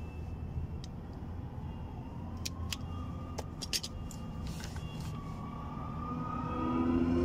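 A vehicle engine runs steadily, its pitch slowly rising and growing louder near the end, with scattered light clicks over it.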